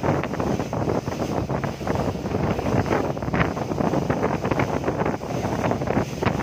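Wind buffeting the phone's microphone on the deck of a boat underway, a rough, gusty rush over the boat's running noise.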